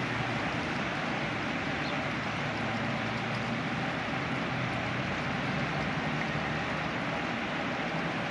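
Steady hum of distant road traffic, even throughout with no distinct events.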